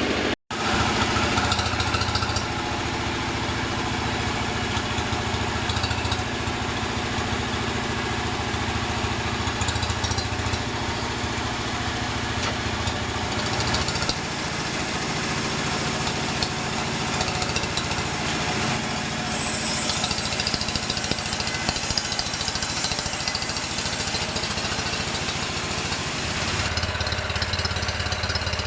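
Sawmill machinery running steadily: an engine-driven saw setup producing a continuous dense drone. The sound cuts out for a split second just after the start, and the low drone shifts about halfway through and again near the end.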